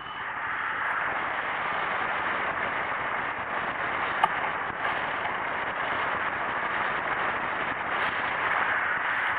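Steady rush of air past a hang glider in flight, wind buffeting the glider-mounted microphone, with a single sharp click about four seconds in.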